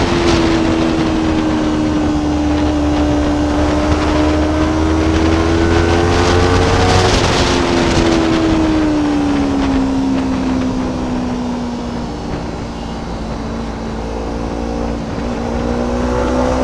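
Kawasaki Ninja 300's parallel-twin engine running under way. Its note rises and falls with the throttle, drops sharply about seven seconds in, sinks lower as the bike slows, and climbs again near the end.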